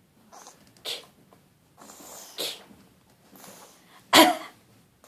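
A baby fake coughing: three short breathy coughs, the last one, a little after four seconds in, the loudest.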